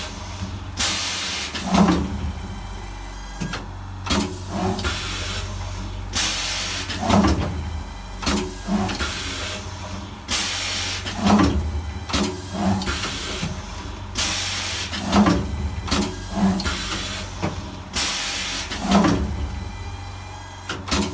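Hot foil stamping press for napkins cycling about every four to five seconds, five times. Each stroke brings bursts of air hissing and a short knock as the heated platen presses down and lifts. A steady low hum runs under it throughout.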